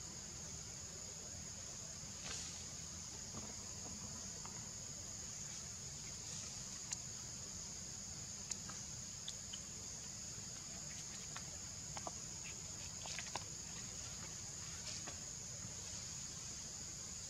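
Steady, high-pitched trilling drone of insects, with a few faint scattered clicks and rustles.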